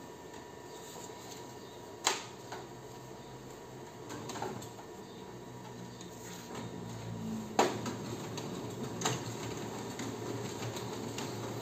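Ricoh MP 5002 copier running a multi-page print job, a steady mechanical hum with two sharp clicks, about two seconds in and again near eight seconds in. It is a test run to see whether the SC360 error comes back.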